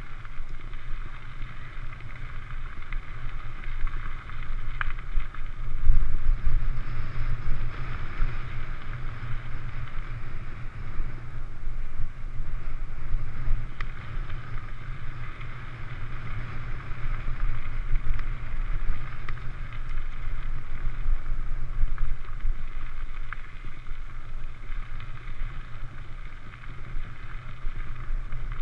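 Wind buffeting a bike-mounted GoPro while the mountain bike's tyres roll over a gravel track at riding speed, with a low rumble, a steady hiss and a few light clicks.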